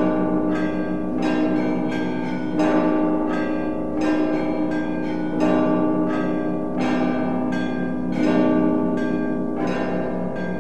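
Russian Orthodox church bells of the Rostov Kremlin belfry rung in a peal. A deep bell is struck about every second and a half under a quicker pattern of smaller, higher bells, their tones ringing on into one another.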